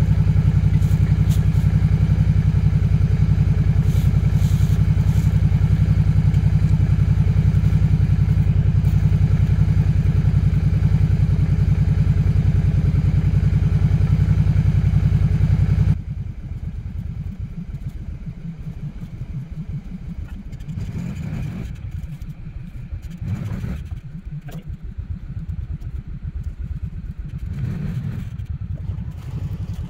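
Four-wheeler's 750 cc V-twin engine running loud and steady at an even speed, close to the microphone. About sixteen seconds in it cuts off abruptly, and a quieter, uneven low rumble with scattered knocks follows.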